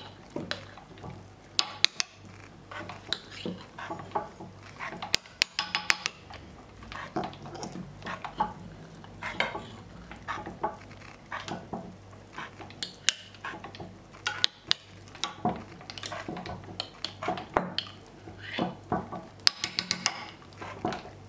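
Hand-cranked metal meat grinder forcing strawberry cream cake through its auger and cutting plate: irregular clicks, knocks and scraping of metal parts working through the soft cake. A faint steady low hum runs underneath.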